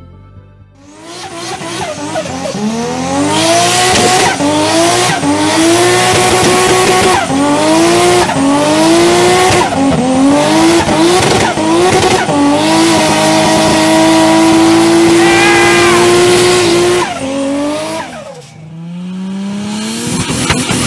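Turbocharged car engine revving hard, its pitch climbing and dropping sharply over and over. It then holds a high steady pitch for about four seconds before cutting off, and a new climb starts near the end.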